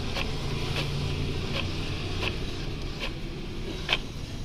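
Epson L3215 ink-tank inkjet printer printing a colour photo sheet: a steady motor hum with a sharp click about every three-quarters of a second as the print head shuttles across the page.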